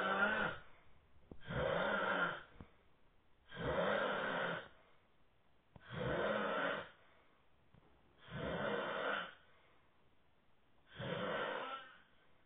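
Snoring in a steady rhythm: six snores, one about every two seconds, each lasting about a second, with quiet gaps between them.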